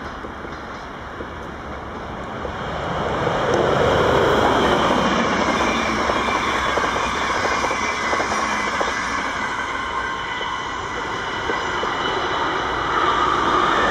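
A passenger train hauled by an SNCB class 28 electric locomotive passing close by at speed: a steady rumble and hiss of the coaches' wheels on the rails. It grows loud about three seconds in and holds.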